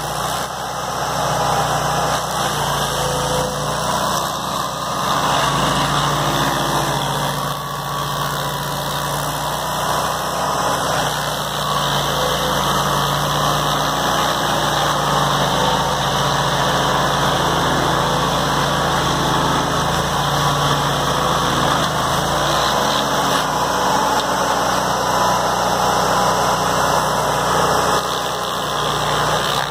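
The engine of a walk-behind stump grinder running steadily under load while its spinning cutter wheel grinds through a large cottonwood root, throwing wood chips and dirt.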